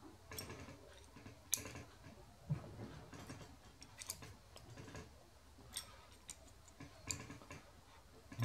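Faint, irregular metal clicks and ticks of a long hex key being turned and refitted in socket-head cap screws, tightening them into a steel assembly.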